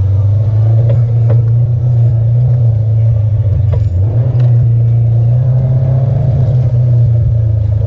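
Side-by-side UTV engine running steadily at low trail speed, a loud constant drone, with a few sharp clicks and knocks from the ride over the trail.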